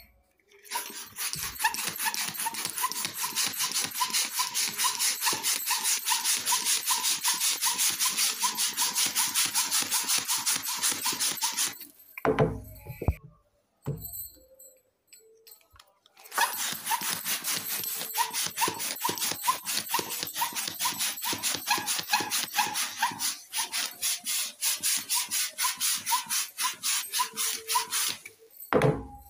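Plastic hand balloon pump worked in quick, even strokes, several a second, each a rush of air, inflating a latex balloon. Two long runs of pumping with a short pause between them.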